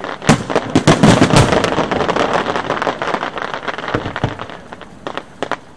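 Aerial fireworks going off: a dense volley of sharp bangs and crackles starts about a third of a second in, then thins to scattered single reports near the end.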